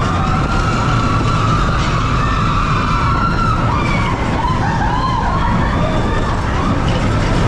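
Expedition Everest roller coaster train running on its track, a steady loud rumble mixed with wind noise, with wavering high-pitched tones rising and falling over it.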